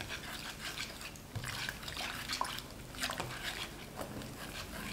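Chopsticks stirring flour into brown-sugar water in a large ceramic bowl: soft, wet swishing strokes of thickening batter, repeated a few times a second, while more flour is poured in.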